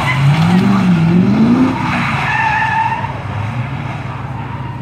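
LS1 V8 in a Nissan 300ZX (Z32) being revved hard while the car slides on wet tarmac, its note rising and falling for the first couple of seconds. A brief high tyre squeal follows about two seconds in, and the sound then fades as the car pulls away.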